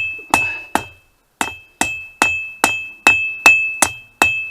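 Hand hammer striking hot mild steel on an anvil in a steady rhythm, about two and a half blows a second, each blow ringing. The blows pause briefly about a second in.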